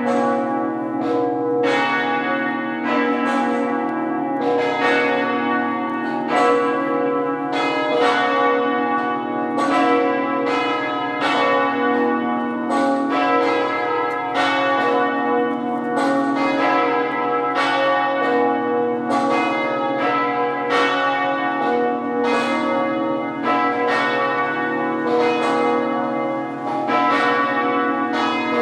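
Cathedral bells rung half-muffled for a Sunday mass: a steady run of overlapping strokes, about two a second, with clear open strokes among duller muffled ones. Half-muffled ringing is the sign of mourning.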